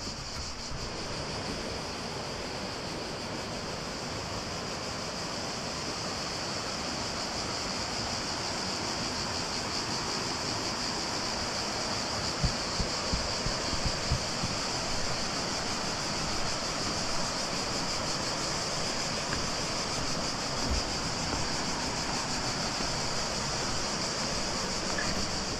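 Steady rushing water of the Krka river, an even hiss, with a few short low thumps about halfway through.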